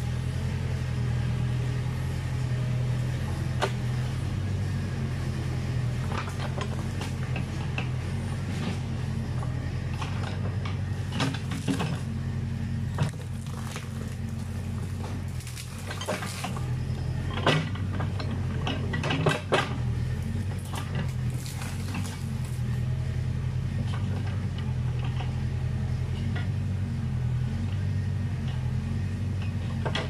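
Backhoe's diesel engine running steadily while its bucket works through woody brush. Scattered sharp cracks and knocks of branches breaking and debris being struck cluster in the middle, with a few louder ones.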